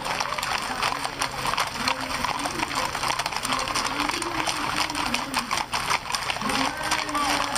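Many horses' hooves clopping on pavement in a dense, rapid clatter, with people's voices in the background.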